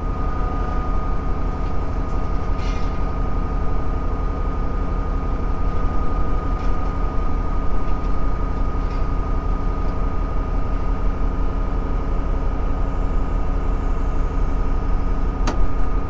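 Tractor diesel engine running steadily under a working throttle, with a steady high whine on top.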